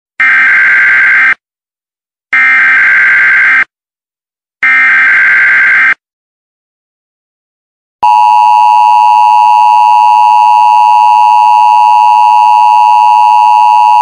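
Emergency Alert System tones: three digital header bursts of rapid warbling data tones, each just over a second long, then about eight seconds in a steady two-tone attention signal that starts abruptly and holds.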